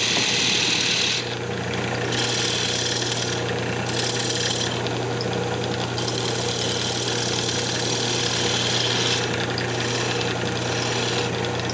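Wood lathe running with a steady motor hum while a hand-held turning tool cuts a small spinning wooden box blank. The cutting hiss comes and goes in several passes as the tool is pressed in and eased off.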